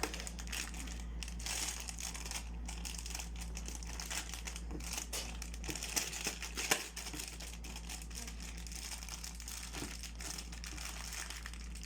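Crinkly plastic blind-bag packaging being handled and unwrapped, a continuous rustling with scattered sharper crackles over a steady low hum.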